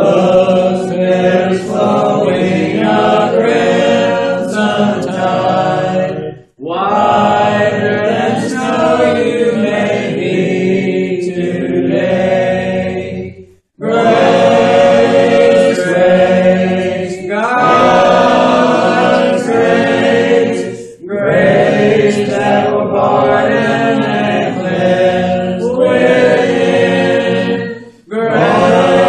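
A church congregation singing a hymn a cappella, in sung phrases of about seven seconds with a short breath between each.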